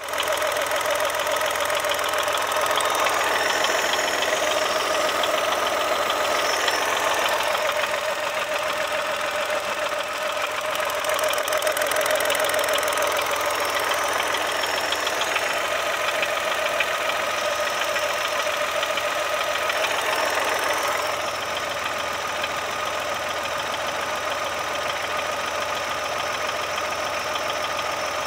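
Chevrolet Onix Plus three-cylinder engine running at idle, with a fast, even ticking over the engine sound. It becomes a little quieter about two-thirds of the way through.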